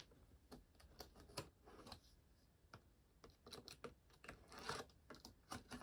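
Faint, scattered clicks and a few short scrapes from a box cutter and a cardboard box being handled.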